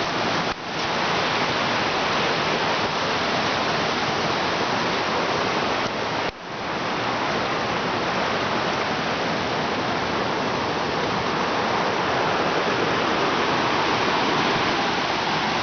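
Forest stream rushing loudly and steadily, dropping out briefly twice.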